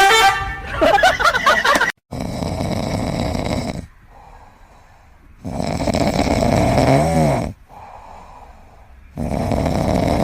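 A pet snoring heavily: three long, loud snores a few seconds apart, with quieter breaths between them. A brief pitched sound comes at the very start, before the snoring.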